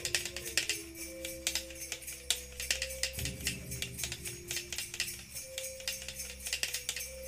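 Background music: a light tune of long held notes over a bass, with a quick, even jingling shaker or tambourine rhythm.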